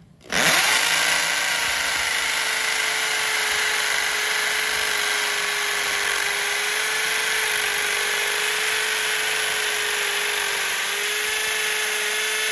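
Electric drill boring a 12 mm hole into a masonry column with a masonry bit. The motor spins up about half a second in, then runs at a steady pitch under load, dipping briefly near the end.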